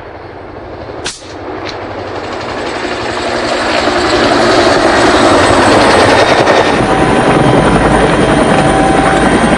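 Helicopter growing louder over the first few seconds, then running steadily with a fast pulsing beat of its rotor.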